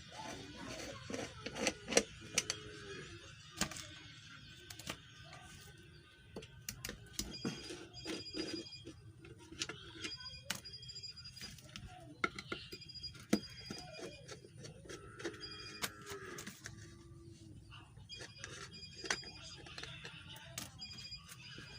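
Irregular metal clicks and taps from a tool working the nuts on a ceiling fan's body as they are undone, over a low hum, with faint voices in the background.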